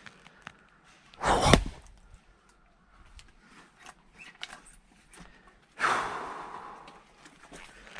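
Axe splitting firewood, a hard chop into a log about a second in. A second, longer rush of sound near six seconds in fades away over about a second.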